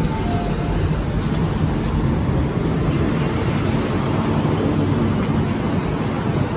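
MTR Tseung Kwan O Line K-stock electric train running at the platform, a steady rumble and hiss, after a short two-note tone right at the start.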